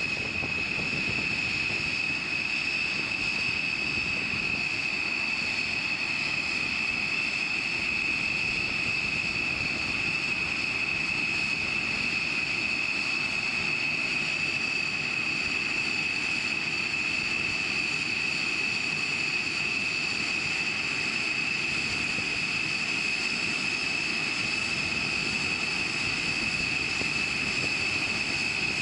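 B-1B Lancer's General Electric F101-GE-102 turbofan engines running at low power as the bomber taxis: a steady high-pitched whine over an even rush.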